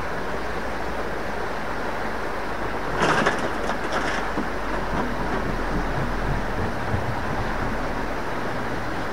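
A bucket of magnet-fishing scrap metal tipped into a trailer, the pieces clattering for about a second, roughly three seconds in. Under it, the steady rush of a small river.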